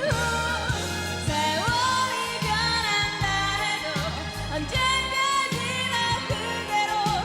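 An older Korean pop song: a woman sings the melody over band accompaniment, with a steady bass and drum beat.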